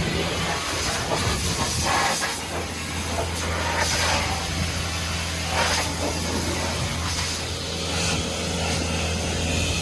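Compressed-air blow gun hissing as it blasts dust and chaff out of a big square baler, surging every second or two, over the steady hum of an engine running.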